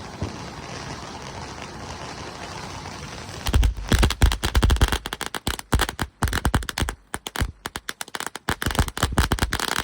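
Fireworks going off in a rapid, irregular string of sharp pops and crackles, starting about three and a half seconds in after a steady hiss.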